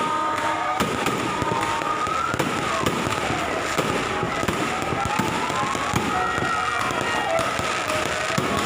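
Fireworks going off continuously, a dense run of pops and crackles, with whistles sliding up and down in pitch over them.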